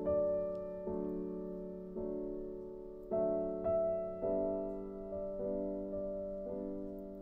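Background music: gentle piano chords, a new chord struck about once a second and left to fade.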